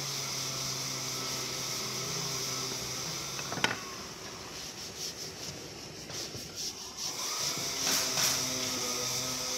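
Hand-held sandpaper rubbing along wooden boards in quick strokes. Under it runs a steady low machine hum, which stops after a sharp knock about three and a half seconds in and comes back near the end.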